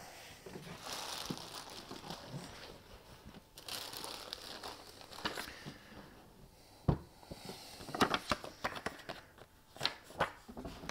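Plastic packaging bag crinkling and rustling as it is handled and pulled open, with scattered sharper crackles and clicks in the second half.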